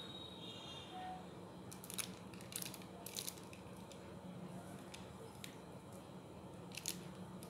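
A silicone spatula working soft cookie dough in a glass bowl: a few short, soft scrapes and taps about two, two and a half, three and nearly seven seconds in, over a low steady hum.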